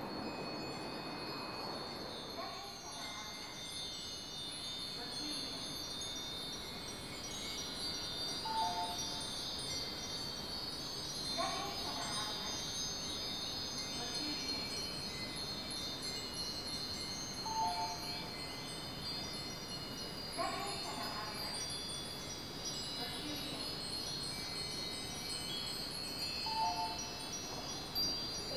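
Nambu cast-iron wind chimes ringing in the breeze, with long high tones that overlap and clear single strikes that stand out every few seconds.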